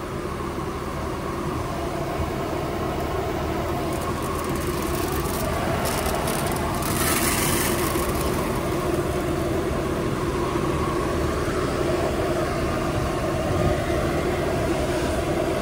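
Tractor diesel engine running steadily at idle. About seven seconds in, granular fertilizer pours from a sack into a planter hopper with a brief hiss.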